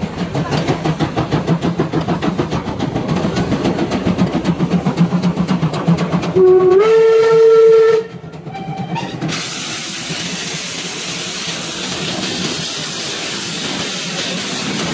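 Steam locomotive passing at speed: rapid, even exhaust chuffs for about six seconds, then a loud steam-whistle blast lasting over a second that steps up slightly in pitch as it starts, and a brief shorter whistle note after it. After that comes a steady rush of steam and rolling carriages.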